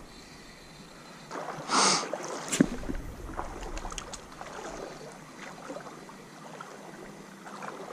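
Spinning reel faintly cranked as a spinner lure is retrieved through a river, with a short rush of noise about two seconds in followed by a click.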